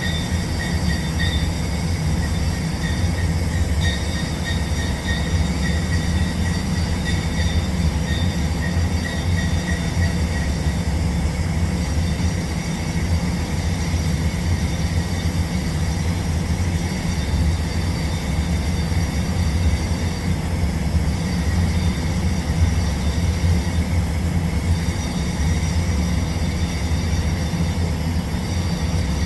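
TIG welding on pipe: a steady, unbroken electrical buzz from the arc and welding machine, with a strong low hum and a faint high whine over the first ten seconds or so.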